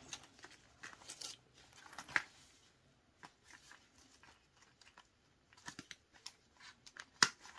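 Handling of a faux-leather ring-binder wallet: soft rustling of its plastic pockets and scattered small clicks. Near the end one sharp click as the strap's snap button is pressed shut.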